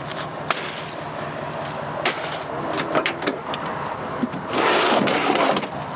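Gear being handled in a pickup's bed beside a cooler: several sharp knocks and clicks, then about four and a half seconds in a louder rustling scrape lasting about a second, over a steady low hum.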